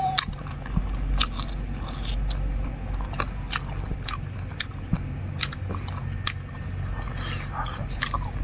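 Close-up mouth sounds of a person eating: chewing and biting, with sharp, irregular clicks and crunches, over a steady low hum.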